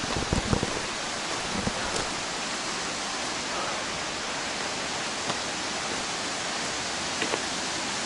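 Steady, even rushing hiss with no clear pitch, with a few low knocks about half a second in.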